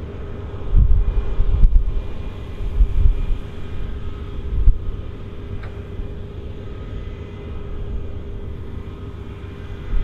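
Claas Lexion 8900 combine harvester running under load while harvesting canola. A steady machine hum sits over a low rumble that swells and fades several times.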